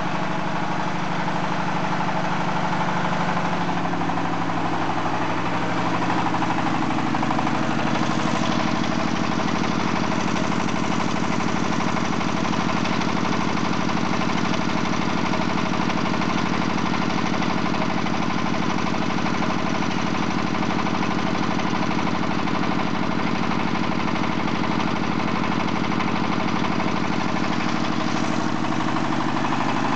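XY-1A core drilling rig running on its single-cylinder diesel engine, a steady engine drone with the belt drive and gearbox turning. The engine note shifts to a new pitch about five seconds in, then runs evenly.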